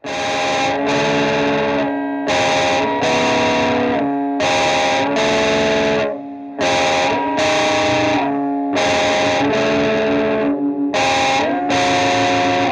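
Distorted electric guitar playing a repeating chord riff: pairs of held chords about every two seconds, with short breaks between them.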